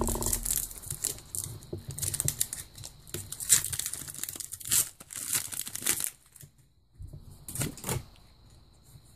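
Foil Pokémon TCG Guardians Rising booster pack being torn open and crinkled in the hands: a dense crackling rustle that eases off about six seconds in, followed by a couple of short rustles near the end.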